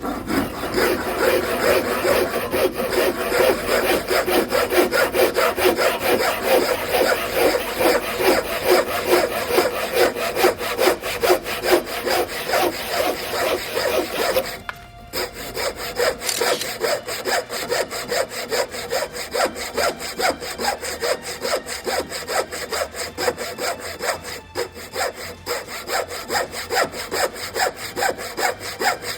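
Zetsaw IRON 240 handsaw cutting through lumber in rapid, even back-and-forth strokes, the teeth rasping through the wood. About halfway through, the sawing stops for a moment and then picks up again at the same pace.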